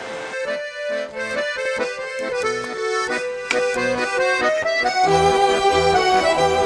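Accordion music playing a lively melody, with a low bass pattern coming in about five seconds in.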